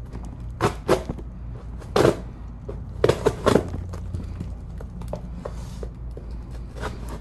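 Cardboard packaging being handled and pulled apart: several sharp knocks and rustles in the first four seconds, over a steady low hum.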